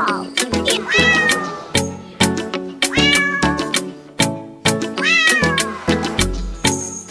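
Upbeat dance music with a steady beat, with cat meows laid over it as part of the track, four of them, each sweeping up and down in pitch.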